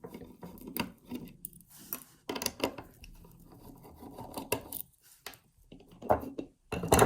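Metal parts of a 5-lever mortice lock being handled as its case is opened to get at the levers: irregular light metallic clicks and knocks with scraping and rubbing between them, the loudest knock near the end.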